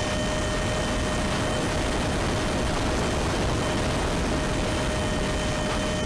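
Airflow rushing steadily over the onboard camera of a Tech One Neptune RC flying wing in flight in strong wind, with a faint steady whine of fixed pitch under it.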